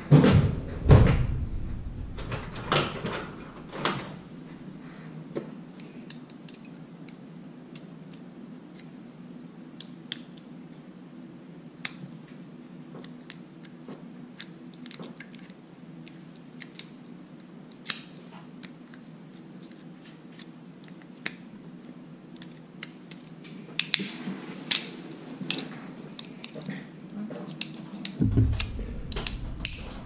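A small screwdriver prying and clicking at the black plastic motor gearbox housing of a Kwikset keyless deadbolt, with scattered sharp plastic clicks and taps. There are a few louder knocks of tools being handled in the first few seconds, and a cluster of clicks and clatter near the end.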